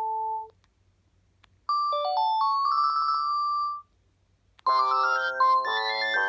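Panasonic KX-TG7321E phone playing its built-in ringtones one after another. A held chord dies away, then a short jingle of stepping notes ends in a quick repeated note. About four and a half seconds in, a fuller polyphonic melody starts.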